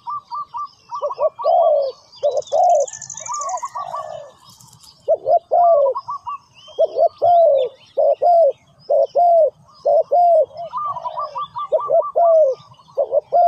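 Spotted doves cooing repeatedly: a decoy bird's call answered by wild doves, with fast runs of short higher notes at the start and about eleven seconds in. Small birds chirp faintly in the background.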